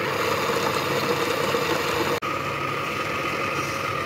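Small electric motor of a plastic beginner's pottery wheel kit running steadily, a constant hum as the wheel head spins. The sound drops out for an instant about two seconds in.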